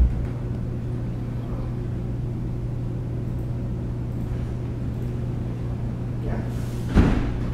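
Steady low hum of idling traffic engines at an intersection, with a short knock at the start and a loud, heavy thud about seven seconds in, the sound of a car door shutting.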